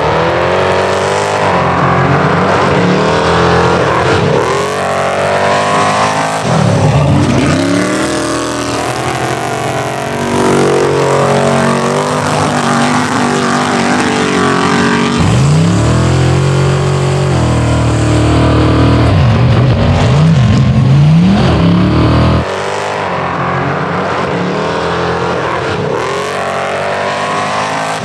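High-horsepower off-road race engines at full throttle, an Ultra4 buggy and a 1988 Ford Bronco II racing head to head. The pitch climbs and falls again and again as they rev through the gears, and the sound drops in loudness about 22 seconds in.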